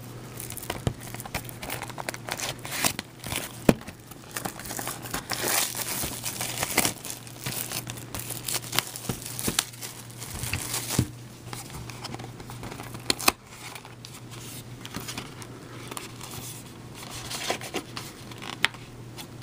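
Plastic shrink wrap being torn and peeled off a trading-card box, crinkling and crackling. The crackling is densest in the first half and thins out later as the cardboard box is handled and opened, over a faint steady low hum.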